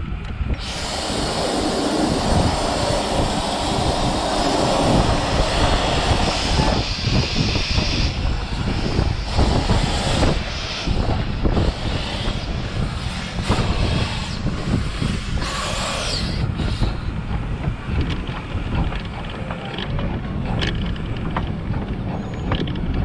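Steam hissing loudly from a 1920 Albert Barnes 4-4-2 15-inch-gauge steam locomotive for about four seconds, then the locomotive working past with irregular chuffs and clatter over the rails, over a steady low rumble and wind on the microphone.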